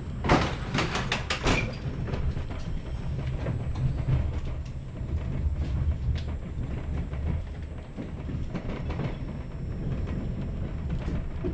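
Steady low rumble of a 120A passenger coach running behind an ET22 electric locomotive, heard from inside the coach, with a quick run of about six sharp wheel clacks over the track in the first second and a half.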